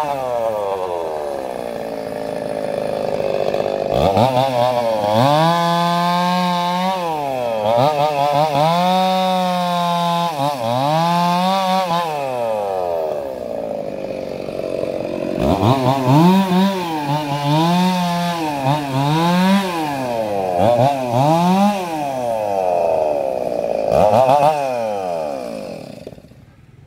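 Two-stroke petrol chainsaw bucking a felled glodokan tiang trunk into sections. The engine revs up and drops in pitch under load again and again as the chain goes through the log, with a short lull midway. It fades out near the end.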